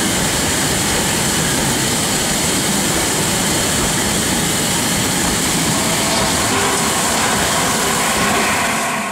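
Loud, steady hiss of steam from the standing Peppercorn A1 Pacific No. 60163 Tornado close beside the platform. It keeps an even level without any beat of exhaust or wheels.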